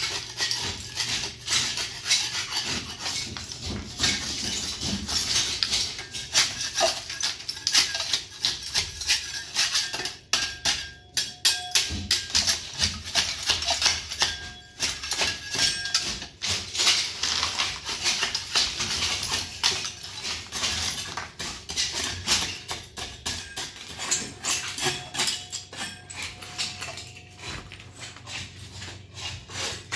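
Hand scraper scraping old plaster and paint off a wall in quick, repeated strokes.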